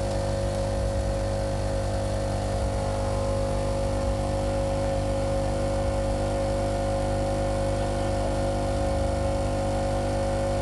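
Microwave oven running on generator power: a steady, unchanging hum with a constant tone over a low engine drone.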